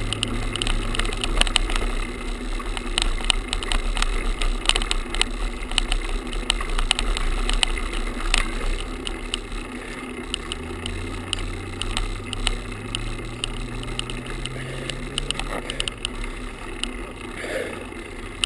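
Handlebar-mounted action camera tied on with a shoelace, vibrating and rattling against the bar of a road bike on a rough paved climb, heard as many small clicks over road and tyre noise. A low hum rises in pitch and falls back in the second half.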